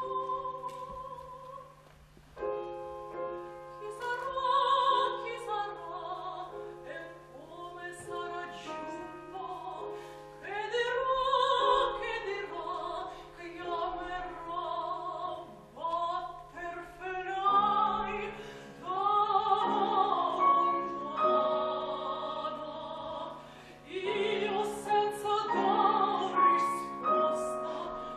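A female opera singer singing an aria in full classical voice with vibrato, phrase after phrase, accompanied by a grand piano.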